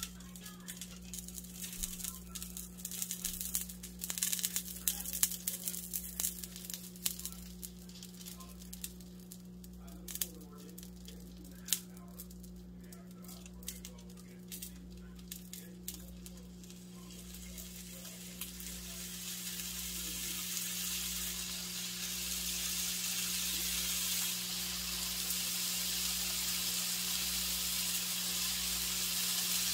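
Raw bacon-wrapped steak pieces being set into a nonstick frying pan with scattered soft taps and handling noises. Over the second half, a sizzle builds steadily as the bacon starts to fry in the heating pan, over a steady low hum.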